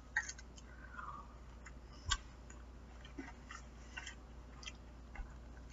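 Faint chewing of a piece of fried hot chicken: soft, scattered mouth clicks, with one sharper click about two seconds in.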